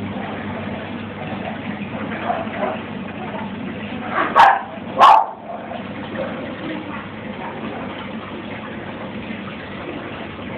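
Two short, loud barks like a dog's, about two-thirds of a second apart, over the steady bubbling and running water of the catfish tank's aeration or pump.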